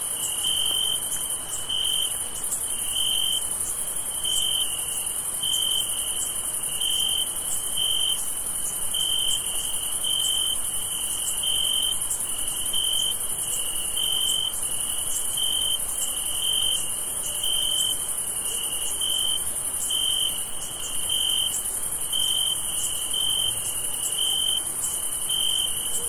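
Crickets chirping in an even rhythm, a little more than one chirp a second, over a continuous high-pitched insect trill.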